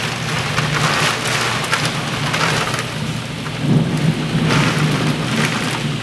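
Heavy wind-driven rain and high wind in a severe thunderstorm: a loud, continuous rush that swells in gusts, loudest a little past halfway.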